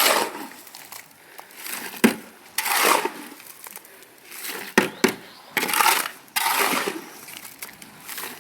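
Shovel scraping and crunching through a pile of concrete mix being turned by hand: a gritty scrape every second or two, with a few sharp clinks of the blade.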